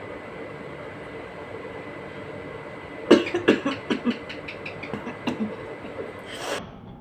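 Short, sharp nasal snorts and sniffles, about a dozen in three seconds, ending in one longer sniff, as the nose is tickled to bring on a sneeze. A steady hum runs underneath.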